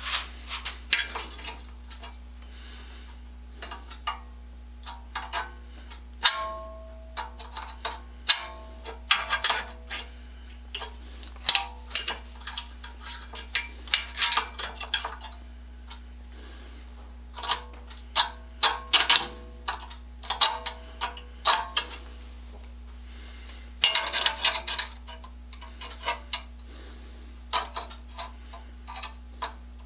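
Irregular clinks and knocks of metal parts and hand tools being handled and set down, a few ringing briefly, over a steady low hum.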